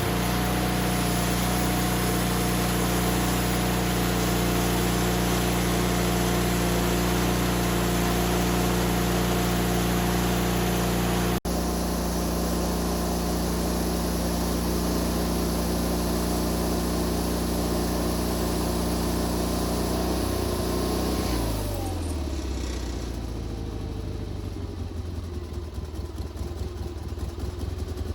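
Woodmizer LT40 portable band sawmill running steadily under load, its engine's drone under the hiss of the band blade cutting through a poplar log. About 21 seconds in, the engine pitch falls and the cutting hiss fades as the mill drops to a lower idle.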